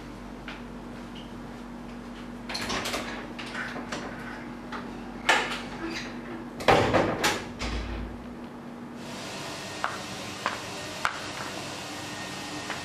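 A run of knocks and clatters, the loudest about halfway through, typical of a door being opened and shut; a few light clicks follow near the end.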